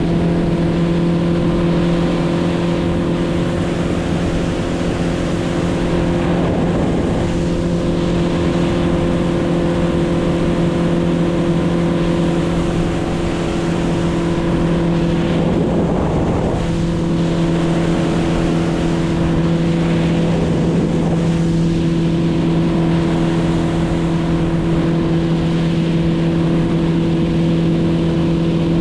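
An engine running at a steady, unchanging speed, a constant drone with a strong low hum over a wash of noise.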